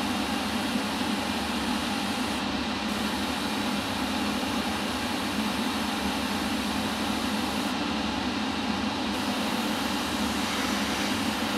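Harder & Steenbeck Infinity airbrush spraying paint with a steady hiss of air, over a constant mechanical hum. The highest part of the hiss drops away briefly twice, as the trigger is eased.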